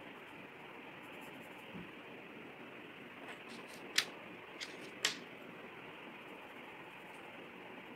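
Colour pencil scratching lightly on paper as the lips are shaded, over a faint steady hiss, with two sharp clicks about four and five seconds in.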